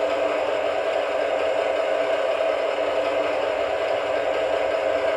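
Sound decoder playing a DR V100-class diesel engine sound, running steadily through a G-scale model locomotive's speaker.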